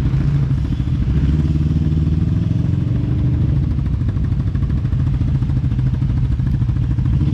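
2012 Yamaha Grizzly ATV engine running steadily at low speed, with no large revs.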